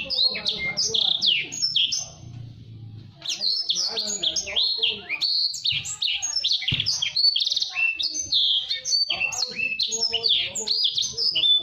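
Blacksang, a blackthroat × sanger canary hybrid, singing a fast, tightly packed song of quick chirps and trills, with a short break about two seconds in.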